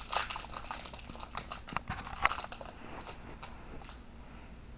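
A baseball card pack wrapper being crinkled and torn open, with the cards inside handled: a run of short crackles and rustles that thin out after about three seconds.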